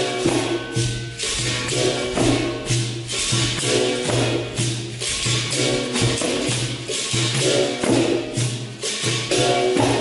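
Capoeira roda music: a pandeiro jingling in a steady rhythm over a hand drum's repeated low beat, with voices singing along.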